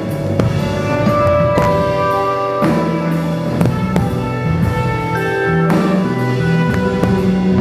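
A band playing music: a drum kit keeping a steady beat under held, sustained instrument notes.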